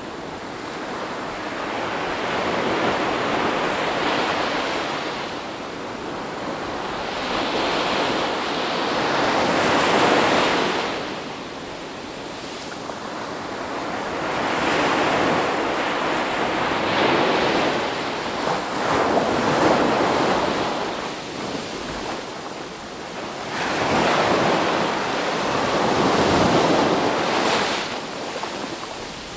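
Ocean waves breaking and washing on the shore, a steady rushing hiss that swells and falls back every few seconds as each wave comes in.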